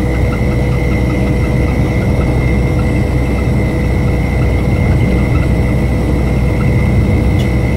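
Heavy truck cruising on a highway, heard from inside the cab: a steady engine drone and road noise, with a thin steady whine over it.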